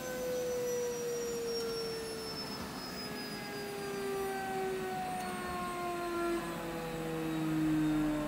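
IHI Dynajet 2.6 micro gas turbine generator winding down: a whine of several pure tones falling slowly and steadily in pitch as the turbine spools down after shutdown. A lower hum joins about six seconds in.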